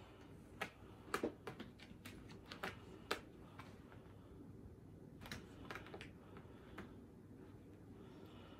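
Faint, irregular clicks and taps of a cat's claws and paws striking a hardwood floor and rug as it bats at a laser dot, coming in small clusters with a lull near the middle.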